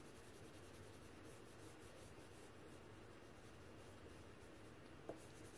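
Faint scratching of vine charcoal strokes on drawing paper, with one short click near the end.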